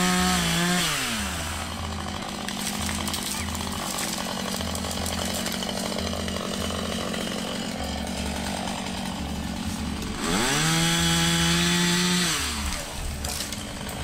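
Two-stroke gasoline chainsaw running at full throttle, dropping to idle within the first second or two, then revved up again about ten seconds in and held briefly before falling back to idle.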